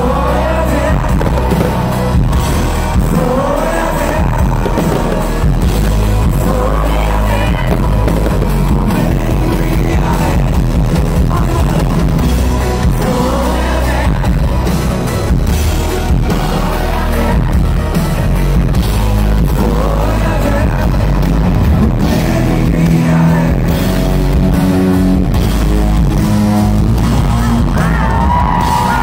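Live pop concert music: a male singer sings over a full band with drums, loud and steady throughout.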